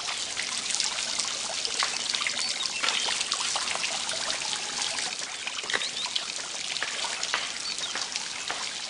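Water from a small courtyard fountain, its jet splashing and trickling steadily into a stone basin.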